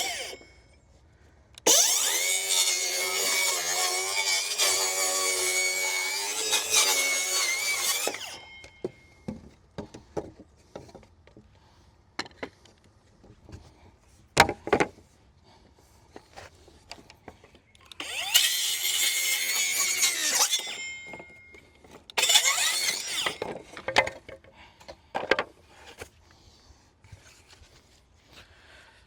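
Power saw cutting wood in three runs: a long one of about six seconds, then two shorter ones near the end, with scattered knocks and clicks between cuts.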